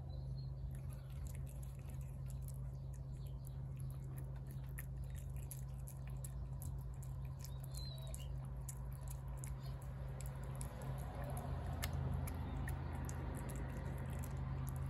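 A cat eating wet food from a plate: a run of small, quick chewing and smacking clicks. A steady low hum sits underneath.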